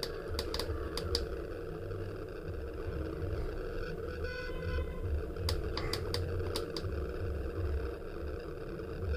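Small push-button switch clicking as it is pressed and released to key Morse code on a homemade QRP CW transmitter: a group of about four sharp clicks near the start and a group of about six a little past halfway. A steady low hum runs underneath.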